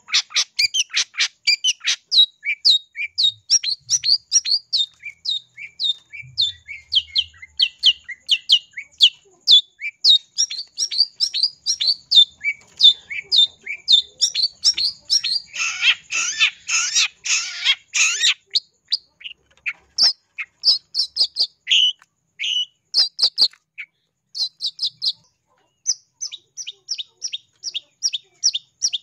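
Long-tailed shrike calling in a rapid series of short, sharp chirps, about three a second, broken midway by a harsh rasping chatter for a couple of seconds, then resuming in shorter runs with pauses.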